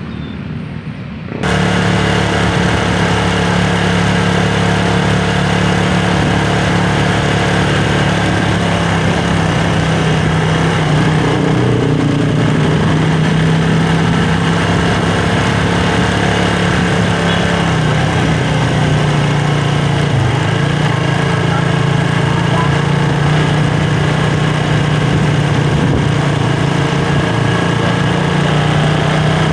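A motorcycle engine comes in suddenly about a second and a half in, then runs steadily on the move with a low hum. Its pitch shifts a little now and then with speed, under a steady rushing noise.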